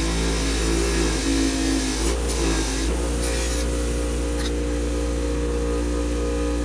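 Bench grinder with a wire wheel running with a steady motor hum, the wire brush scratching against a steel lamp shade to strip off old paint. The hum shifts up in pitch about three seconds in, with a few brief scrapes.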